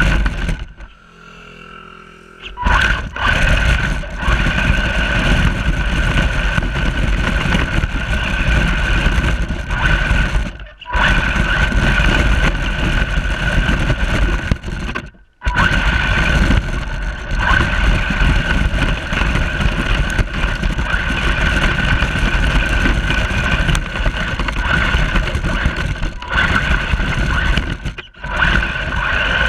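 Radio-controlled truck motor running with a steady whine under a noisy rumble. It stops and starts again several times.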